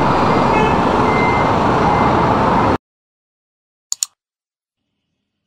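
Street traffic noise with a short high beep about a second in, cut off abruptly just under three seconds in. About four seconds in, a quick double mouse-click sound effect.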